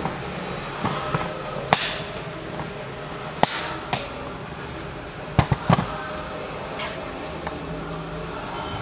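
Scattered sharp knocks and clicks, about eight of them at irregular intervals with a close cluster about five and a half seconds in, over a steady background noise.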